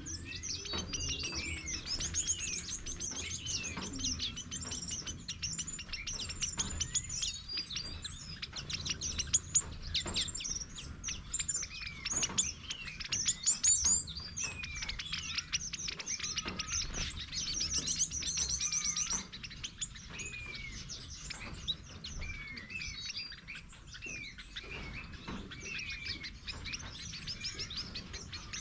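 Mixed flock of small estrildid finches, waxbills and cordon-bleus, chirping and calling constantly: thin high chirps with short downward-sliding calls. The calling is busiest in the first two-thirds and thins out after that. Scattered sharp clicks run through it, loudest around ten and thirteen seconds in.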